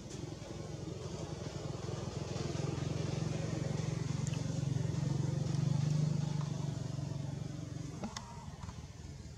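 A motor vehicle's engine passing by, a low hum that grows louder over several seconds and then fades.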